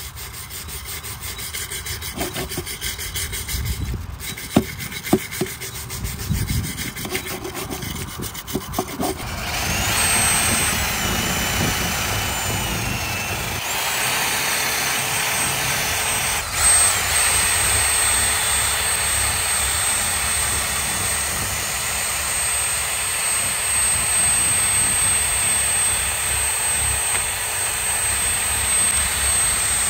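Repeated hand scraping and rubbing strokes, as in sanding or brushing rust off metal. About nine seconds in, an electric power tool starts and runs steadily with a high whine for the rest of the time.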